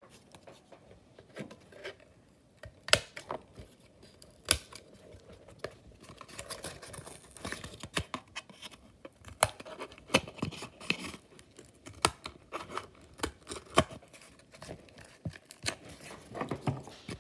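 Scissors snipping through thin cardboard in a run of separate sharp cuts, with the cardboard rustling as it is handled.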